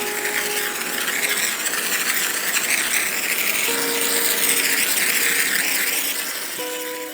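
A steady hiss, with the held notes of background music over it.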